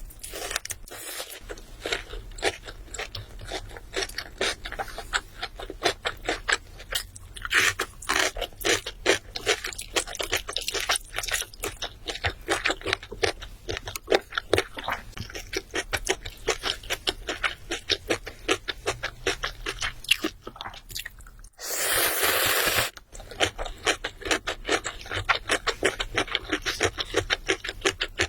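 Close-miked crunching and chewing of crisp fried chicken: dense rapid crackly bites and chews, broken about two-thirds of the way through by a noisy burst lasting about a second.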